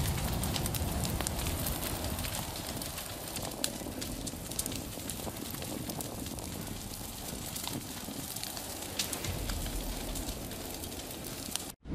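Wildfire burning through forest undergrowth: steady rushing flame noise with many sharp crackles and pops throughout. It cuts off abruptly just before the end.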